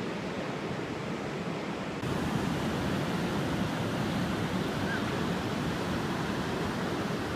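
Ocean surf breaking on the shore: a steady rush of waves that gets louder about two seconds in.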